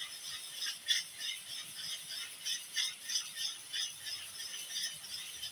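A utensil scraping and clinking against a metal pan while carbonara is stirred over a double boiler (bain-marie), about two to three strokes a second.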